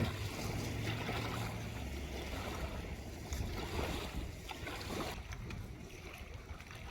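Outdoor ambience: wind on the microphone over a steady low motor hum, with a few faint scattered clicks.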